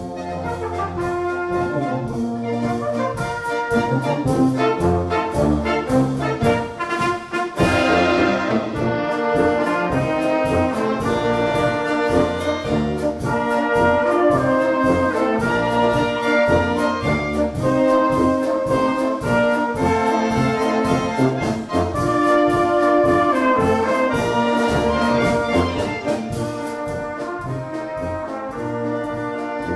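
Brass band music with a steady beat, several brass instruments playing a tune together over low bass notes.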